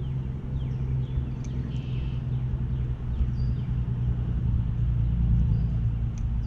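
A motor engine running steadily, a low even drone.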